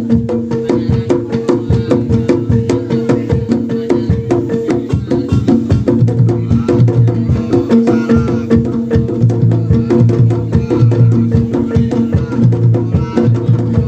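Traditional Javanese bantengan music: fast, dense percussion strikes in a busy, unbroken rhythm over steady ringing pitched tones.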